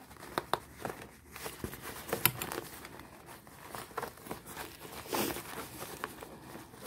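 Hands working the zipper and nylon fabric of an overstuffed padded art bag: rustling and crinkling with sharp clicks, the loudest about half a second and just over two seconds in. The zip is being forced and won't close this way.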